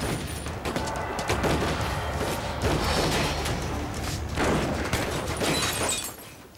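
Action-film soundtrack playing from a television: music with rapid gunfire and impacts, dropping away near the end.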